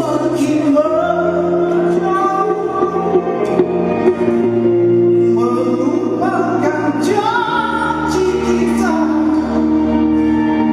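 Rock band playing live: a sung vocal line bending over held guitar chords and changing bass notes.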